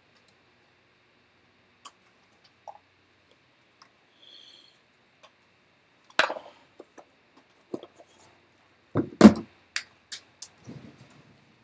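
Handling noise: scattered light clicks and knocks, with a louder thump about six seconds in and another pair of thumps around nine seconds in.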